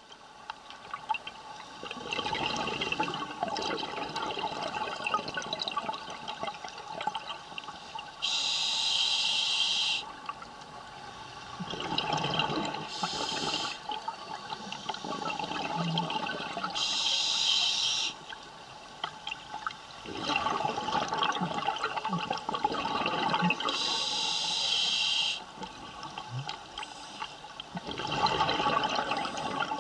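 Scuba diver breathing through a regulator underwater. Spells of bubbling from exhaled air alternate with shorter hissing inhales through the regulator, in a slow repeating cycle of several breaths.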